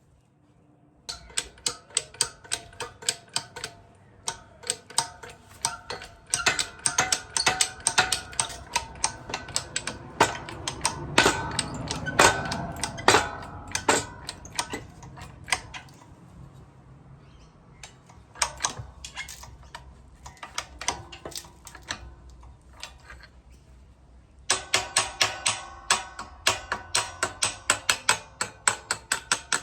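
Background music with a sharp, fast clicking percussion beat over held tones, breaking off and coming back in sections.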